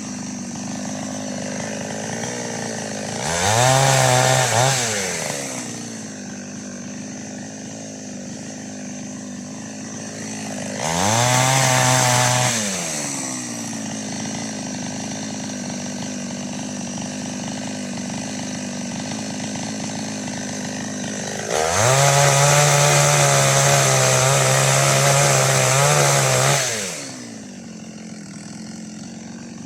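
Two-stroke chainsaw with an 18-inch bar idling, revved up to full throttle three times. The first two revs are brief and the last is held for about five seconds, and the engine drops back to idle after each.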